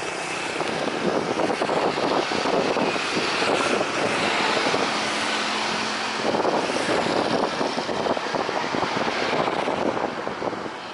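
Propeller aircraft engine noise, a loud steady rush with a choppy, fluttering texture and a faint held tone for a couple of seconds in the middle.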